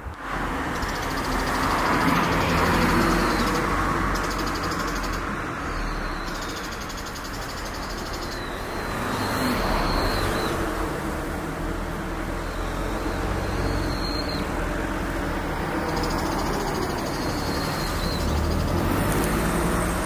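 Road traffic: vehicles passing, a rushing noise with a low engine hum that swells and fades three times.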